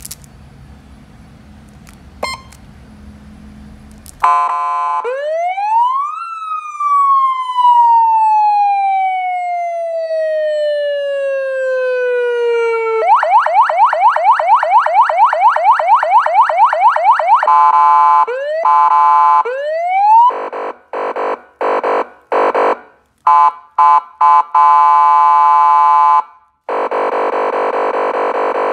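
SA5200 16-tone electronic police siren cycling through its tones, very loud. After a couple of clicks it starts about four seconds in with a slow rising and long falling wail, then switches to a fast yelp, a few quick rising whoops, a choppy on-off tone, and near the end a steady buzzing tone.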